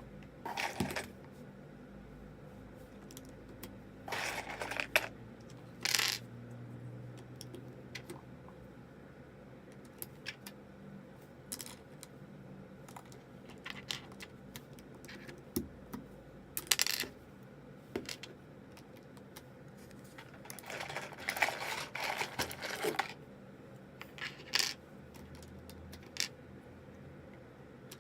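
Plastic keycaps on a mechanical keyboard being pulled off and pressed back on: scattered sharp clicks and a few short bursts of small hard pieces clattering together.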